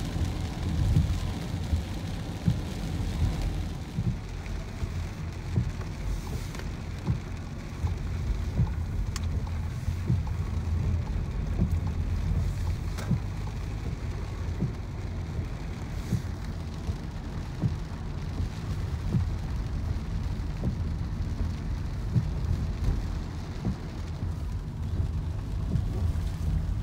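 Steady low road rumble inside a moving car, with rain pattering irregularly on the roof and windscreen.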